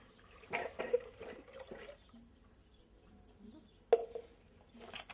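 Milk poured from a plastic jug into an aluminium pot, splashing and trickling for about the first two seconds. A single sharp knock with a brief ring comes about four seconds in.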